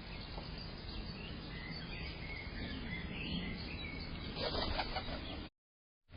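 Small birds chirping, with a brief burst of wing flapping about four and a half seconds in, over a steady low hiss; the sound cuts off abruptly shortly before the end.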